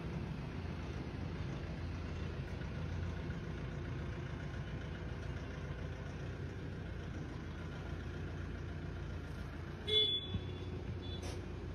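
Pickup truck engine running steadily at low speed, a low rumble. About ten seconds in comes one short, sharp beep-like toot.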